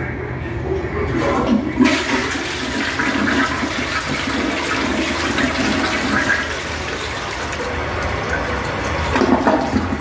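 Two-piece tank toilet flushing: the rush of water starts suddenly about two seconds in, swirling and draining through the bowl, then water runs in from the rim as the bowl refills.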